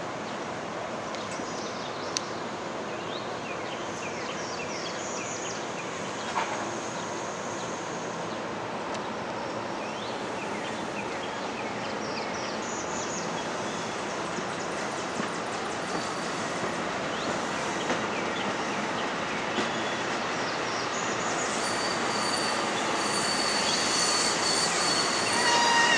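NJ Transit Bombardier MultiLevel coaches rolling past with a steady rush of steel wheels on rail and a few sharp clicks. Short high wheel squeals come and go, and near the end a steady high squeal builds and gets louder.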